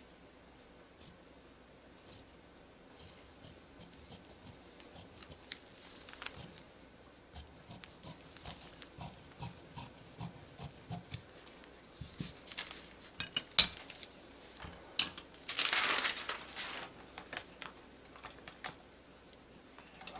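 Fabric shears snipping through knit fabric along a paper pattern: a run of short, sharp blade closings, roughly one every half second to a second. About fifteen seconds in, a rustle lasts about a second and a half.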